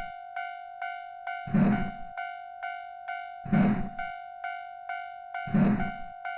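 Railroad crossing warning bell ringing in a steady kan-kan rhythm, a little over two strikes a second, each strike ringing on. Every two seconds one strike is louder and deeper.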